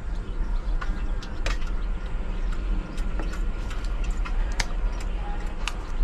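Scattered sharp light clicks and taps, about a dozen of them at irregular moments, over a steady low rumble.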